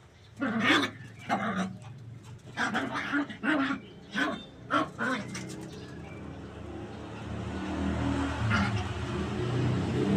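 A puppy barking in a quick run of short, high yaps, about nine over the first five seconds. After that a vehicle's engine rumble grows steadily louder.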